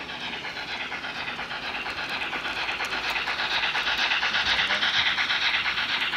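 H0-scale Märklin model freight train running on layout track: rolling wheels and running gear with a fast, even rhythmic beat, growing louder to about five seconds in and then easing slightly.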